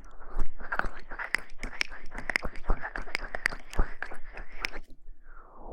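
Close-miked ASMR rustling: dense, fast crackling that thins out near the end.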